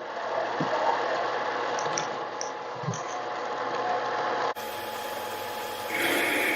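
Mini lathe running while an F-size twist drill bores through a part held in its chuck: a steady motor hum with cutting noise. About four and a half seconds in the sound changes abruptly to a brighter, harsher cutting noise.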